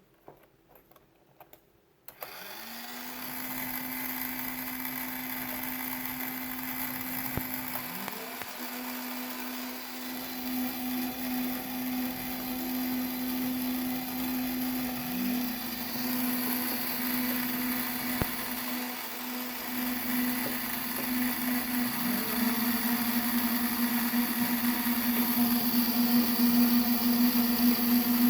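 Small electric motors driving a hobby robot's wheels. They spin up about two seconds in and then run with a steady whine, with a brief rising chirp in pitch about every seven seconds. The whine grows louder near the end.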